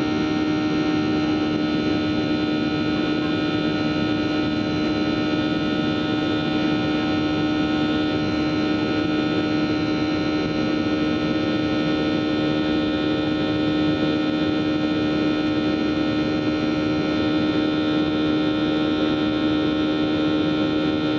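Boeing 737-800's CFM56-7B turbofan engines heard from inside the cabin during the climb after takeoff: a steady drone with a strong low hum and several steady, higher whining tones above it.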